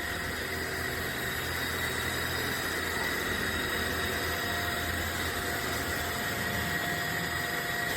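MFJUNS cordless stick vacuum cleaner running steadily: an even airflow hiss with a constant high motor whine.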